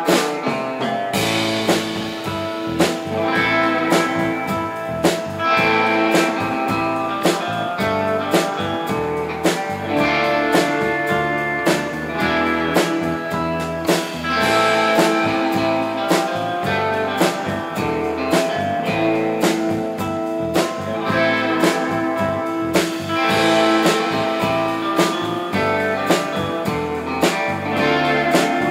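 Live instrumental rautalanka band playing: electric guitar and electric bass over a drum kit keeping a steady beat.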